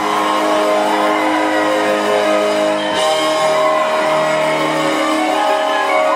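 Live band music: held chords over an electric bass line, the bass notes changing about halfway through.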